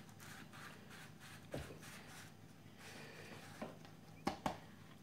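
Faint soft taps and rustles of a plastic icing-sugar shaker being shaken and tapped over a cake, with a few slightly louder taps about a second and a half in and twice near the end.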